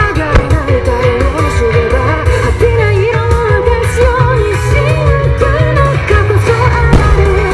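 Song with a singer over a driving beat and bass.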